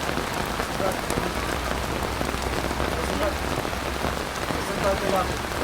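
Pouring rain falling steadily on a surface, a dense, even hiss of countless drops.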